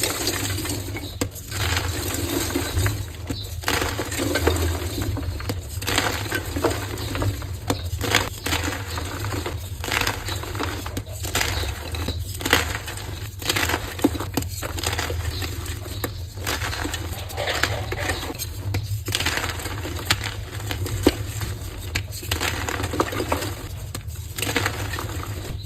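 Colourful heart-shaped blocks of gym chalk being crushed and crumbled by hand: a continuous crisp crunching and crackling, broken by brief pauses every few seconds, over a faint steady low hum.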